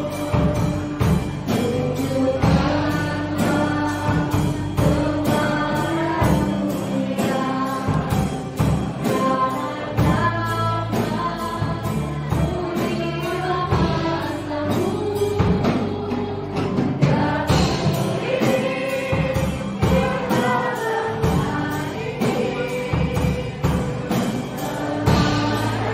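A group of voices singing together with an accompaniment that keeps a steady beat.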